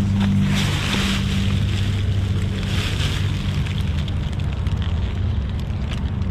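A steady low machine hum, like an idling engine, with a few short bursts of rustling in the first half as trash is rummaged through.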